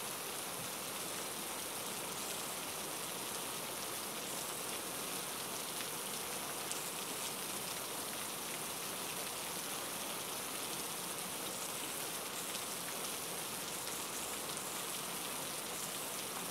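Heavy rain falling steadily: an even hiss with faint scattered drop ticks.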